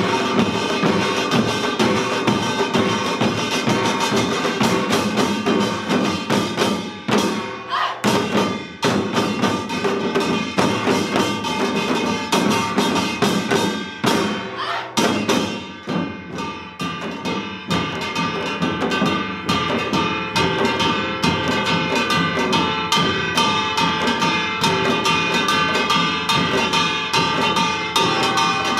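Korean samul nori ensemble playing Yeongnam-style rhythms seated: dense, fast strokes on janggu hourglass drums and buk barrel drums over ringing gongs. The playing thins out briefly twice, at about 8 and 15 seconds in, then fills back in.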